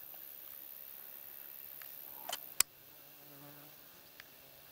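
Faint buzzing of a flying insect near the microphone, steady for a second or so in the second half. A single sharp click a little over halfway through is the loudest sound.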